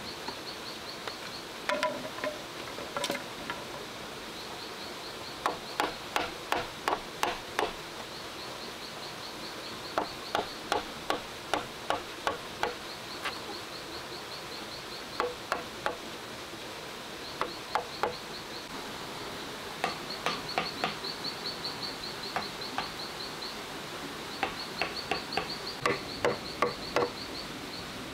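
A knife blade being struck into a green bamboo tube, in runs of several quick, sharp knocks, cutting out a round hole. Behind it an insect chirps in fast, even pulses that come and go.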